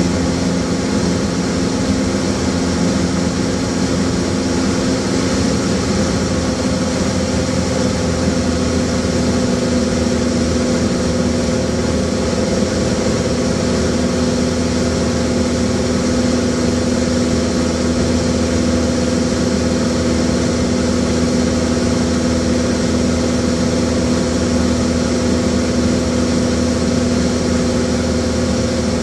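Light aircraft's piston engine and propeller droning steadily in flight, heard from inside the cabin. The engine's tone shifts slightly about six seconds in.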